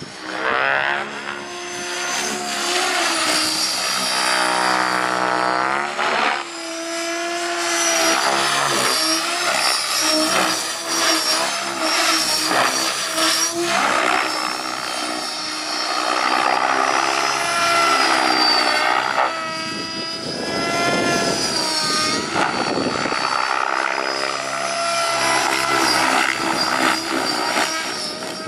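Mikado LOGO 700 XXTreme electric RC helicopter flying aerobatics: the whine of its rotor blades and brushless motor runs continuously, its pitch and loudness rising and falling again and again as it manoeuvres.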